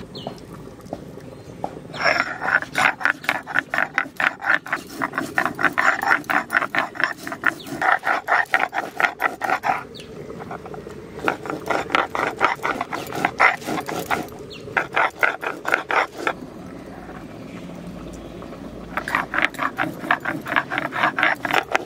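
Stone muller rubbing back and forth on a stone grinding slab (shil-nora), grinding cumin seeds into paste. It goes in quick, regular strokes of about four a second, in three bouts with short pauses between them.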